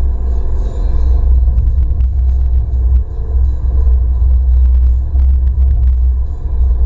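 Alfa Romeo MiTo driving along, heard through a camera suction-mounted on its windscreen. The engine and road make a heavy, steady low rumble with a hum above it, and scattered light ticks come through.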